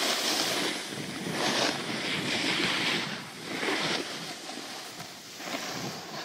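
Skis sliding and scraping over snow on a downhill run, a rushing noise that swells and fades about once a second, with wind buffeting the microphone.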